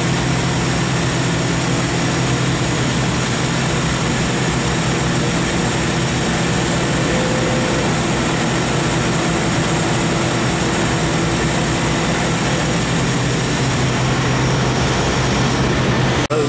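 Steady loud drone of running industrial plant machinery: a constant low hum with a hiss spread across the highs, dropping out for an instant just before the end.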